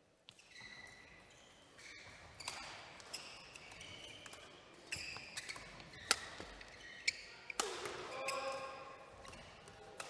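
Badminton doubles rally: rackets striking the shuttlecock with sharp cracks, about six over several seconds, amid the squeak of court shoes on the floor.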